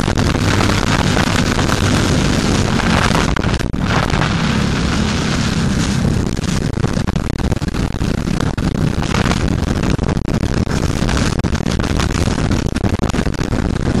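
Racing go-kart engine running hard at speed, heard from an onboard camera, with loud wind buffeting over the microphone that makes the sound dense and distorted.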